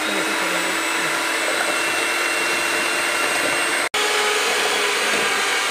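Westpoint electric hand mixer running steadily, its twin beaters whisking eggs and sugar in a plastic bowl: a steady motor whine and hum, broken for an instant about four seconds in, then running on a little higher in pitch.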